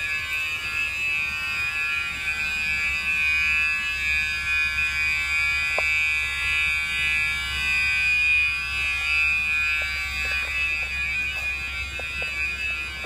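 Emergency exit door alarms sounding a continuous, steady high-pitched electronic tone, several pitches layered together with no on-off pattern. They were tripped when the fire alarm system released the exit door locks, and they are still sounding because they have not yet been reset.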